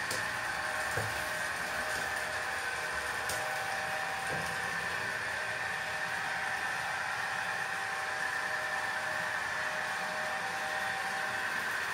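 Model railway locomotive running along the track with its coaches: a steady whirr from the small electric motor and running gear, with a few faint clicks in the first half.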